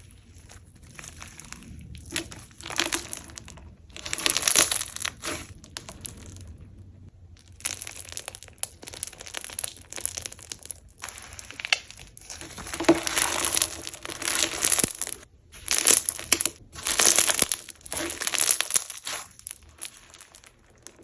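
Slime being squeezed and pressed by hand, making irregular noisy squishes in quick bursts, loudest in a stretch about four seconds in and again through the last third.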